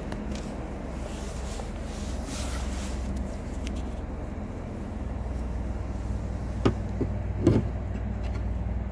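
Steady low background hum, broken late on by three sharp knocks in quick succession.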